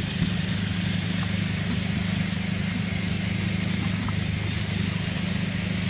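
Steady low engine hum under a constant hiss, with no change in pitch.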